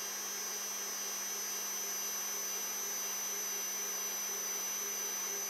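Protomaker 3D printer's Z-axis stepper motors driving the carriage down the threaded rods, a steady electrical hum with a faint high whine.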